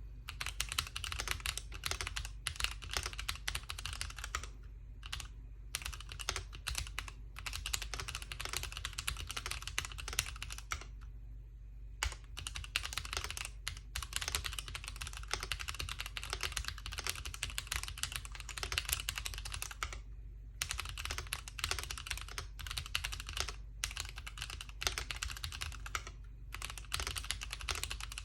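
Continuous typing on a mechanical keyboard with stock AKKO CS Radiant Red linear switches: a dense stream of key clacks, broken by short pauses three times.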